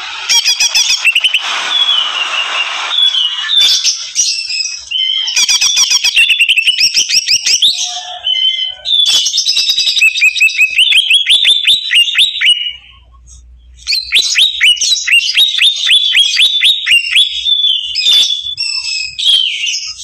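Caged cucak ijo (green leafbird) singing hard in the rapid 'ngentrok' style: long runs of fast, repeated chattering notes and short whistled slides. It breaks off for about a second partway through, then carries on.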